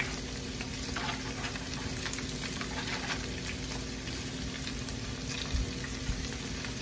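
Raw shrimp frying in garlic butter in a large pan, with eggplant frying in a second pan: a steady sizzle with a few light ticks.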